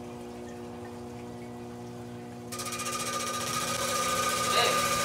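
Hi-Tech Diamond 6-inch saw running, its motor humming steadily as the thin diamond blade spins through its coolant water. About two and a half seconds in, the blade starts cutting into a slab of picture jasper, and a loud hiss with a steady high ring sets in and grows louder.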